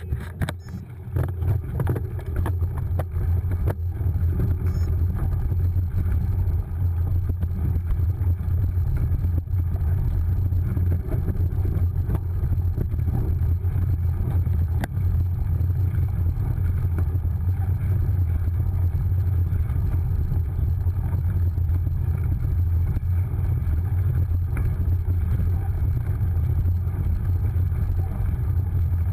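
Steady low rumble of wind buffeting and dirt-track riding noise picked up by a camera on a cyclocross bike's handlebars, with a few knocks in the first couple of seconds.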